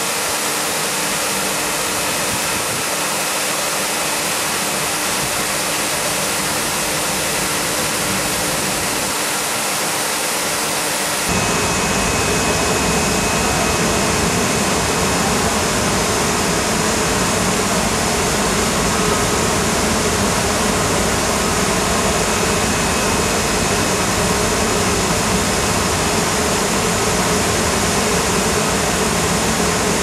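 Trailer-mounted shopping-basket washing machine running: a steady machine noise with a rushing, water-like hiss. About eleven seconds in it gets louder and fuller in the low end.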